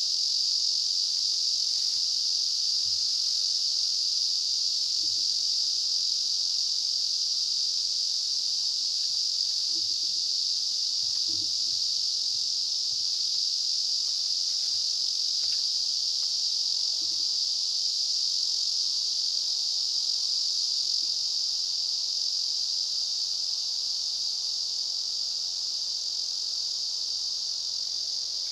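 A dense chorus of insects shrilling in the trees and grass, a steady high-pitched drone without a break that eases slightly near the end.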